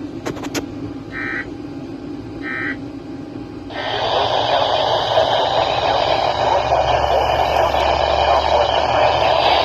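Emergency Alert System end-of-message data bursts: short warbling digital tones, two of them about a second and a half apart, after a few clicks. About four seconds in, loud steady radio static hiss switches on.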